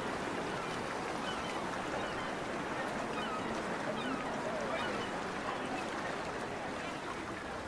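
A steady, dense background hubbub with many short bird-like calls scattered through it.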